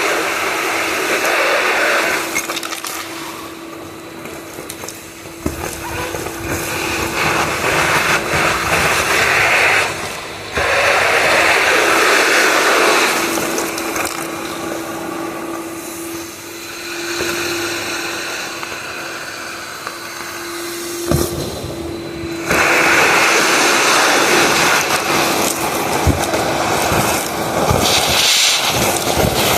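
Skyvac gutter vacuum running with a steady motor hum. Its rushing suction noise swells and drops several times as debris is drawn up the hose.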